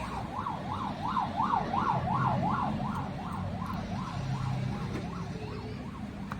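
An emergency vehicle siren in fast yelp mode, its pitch sweeping up and down about three times a second, loudest in the first couple of seconds and then fading away.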